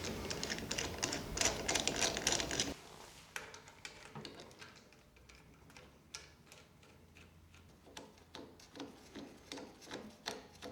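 Clicking and light metal clatter of hand work on hydraulic hose fittings. A louder, dense clatter stops abruptly about two and a half seconds in. After that come scattered, faint ticks and clicks.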